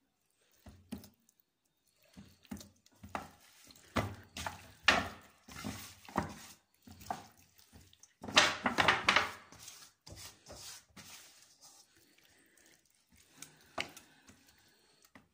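Hands squeezing and kneading a whole raw chicken coated in wet spice marinade in a steel bowl: irregular wet squelching, loudest about eight seconds in.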